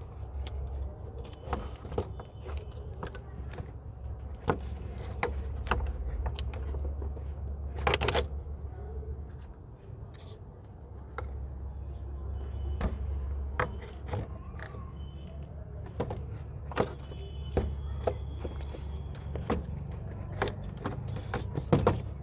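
Irregular metallic clinks, taps and knocks of tools and parts being handled while fitting a car alternator, with a louder scraping burst about eight seconds in, over a steady low hum.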